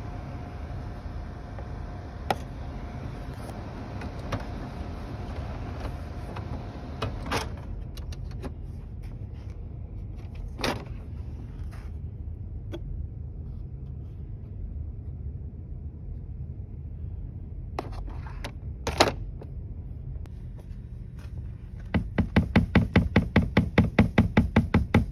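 Low steady hum with scattered clicks and knocks as the printer's toner collection unit and panels are handled. Near the end a fast, even run of knocks starts, about five a second.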